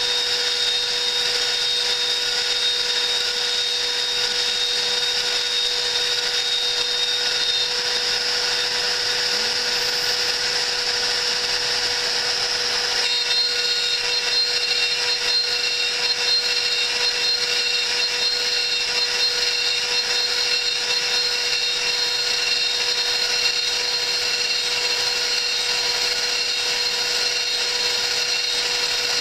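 A CNC milling machine's spindle runs steadily while its end mill cuts metal plates: a steady high whine over a cutting hiss. The pitch of the whine changes about thirteen seconds in.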